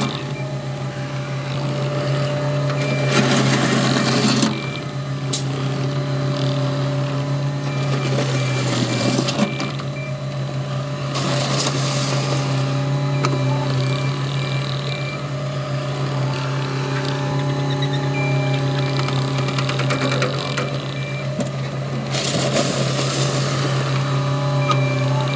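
CAT 259D compact track loader's diesel engine running steadily while the machine pushes and spreads gravel. The bucket scrapes through the gravel in three loud rasping bursts, and faint short beeps repeat at times.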